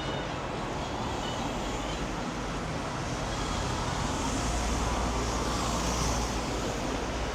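Road traffic noise: a steady rush of passing vehicles, with a low rumble growing louder through the second half.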